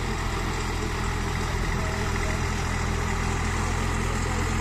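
Same Deutz-Fahr 50 hp four-wheel-drive tractor's diesel engine running steadily while the tractor pulls a rotavator through the mud.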